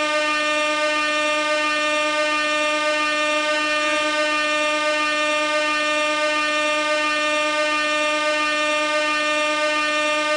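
Air horn blaring one steady, unbroken tone with many overtones.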